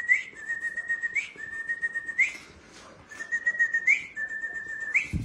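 A person whistling to the dogs: a held note that sweeps up at its end, repeated about once a second, with a short pause about halfway through.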